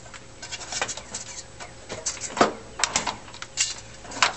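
A few sharp, separate clicks and clinks of small metal parts being handled: greased roller bearings and a washer being fitted together for a sheave's bearing assembly.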